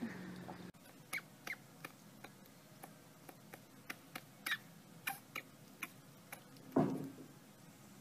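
A hamster nibbling a kernel of food: a run of small, irregular clicks. About seven seconds in comes one louder, short breathy puff.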